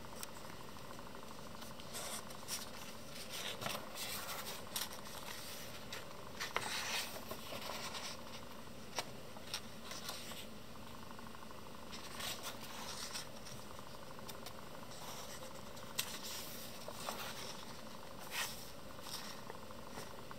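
Paper pages of a Leuchtturm1917 hardcover sketchbook being turned and smoothed flat by hand: scattered rustles and swishes with small clicks, over a steady hiss.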